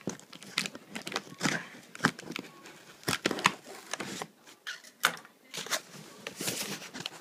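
Cardboard box and paper packaging being handled and opened: a run of irregular rustles, crinkles and sharp crackles.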